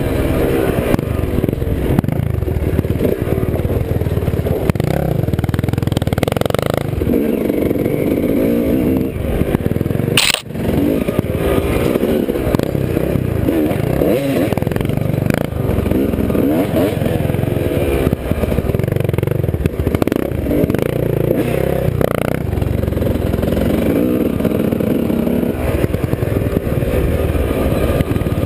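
Dirt bike engine running under way, its pitch rising and falling as it is throttled up and off, with wind and rattle noise on the helmet camera. A single sharp knock comes about ten seconds in.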